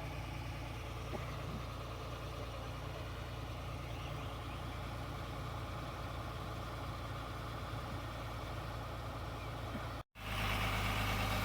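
Tata Hitachi 200 excavator's diesel engine running at a steady low hum. The sound cuts out for an instant about ten seconds in and returns louder.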